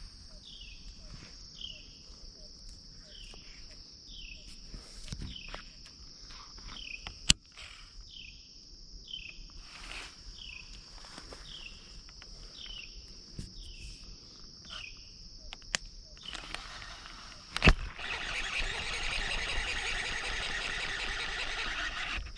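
Insects drone steadily at a high pitch while a bird repeats a short falling call about once a second. Near the end a baitcasting reel is cranked in, a steady whirring of its gears that is the loudest sound, just after a sharp click.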